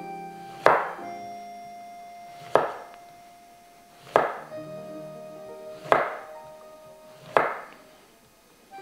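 Knife slicing through an eggplant, five sharp cuts about one and a half to two seconds apart, over background music with held notes.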